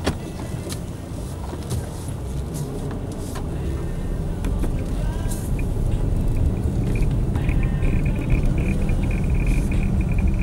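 Car engine and road rumble heard from inside the cabin, getting louder about halfway through as the car picks up speed. A thin, high pulsing tone joins in near the end.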